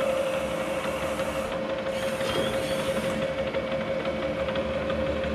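XYZ DPM bed mill spindle running steadily with a 2-inch four-tip face mill, a constant whine over machine noise as the cutter moves in to mill a hex flat on an EN8 steel bushing.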